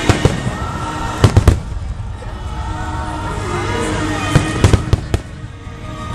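Fireworks exploding: sharp bangs, three in quick succession about a second in and another cluster of four between four and five seconds in, over a steady background of music and voices.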